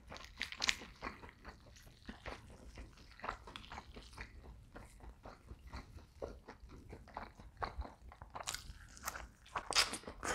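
Close-miked eating of a rotisserie chicken by hand: irregular soft, wet chewing and tearing sounds as the meat is pulled apart and chewed, with a louder run of bites near the end.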